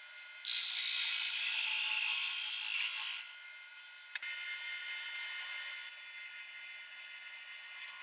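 Drill press with a sanding drum: a loud, harsh hiss from about half a second to three seconds in as the drum grinds against the wood. A sharp click follows about four seconds in, then the press runs on more quietly.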